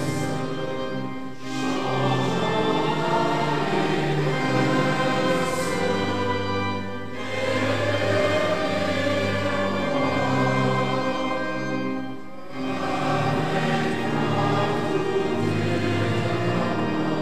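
Congregation singing a hymn in unison over pipe organ accompaniment, the organ holding low bass notes beneath the voices. The singing comes in sung lines with a brief breath pause between them about every five seconds.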